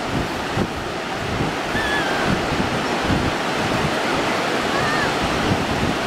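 Ocean surf breaking and washing in over a shallow beach, a steady rush of water, with wind buffeting the microphone.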